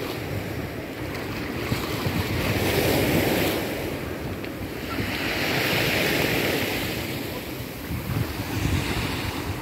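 Choppy sea waves washing in, swelling and fading twice about three seconds apart, with wind buffeting the microphone.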